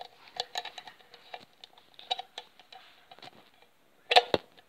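Footsteps and handling noise from a camera carried by hand while walking: a run of soft, uneven taps and clicks, with one louder knock about four seconds in.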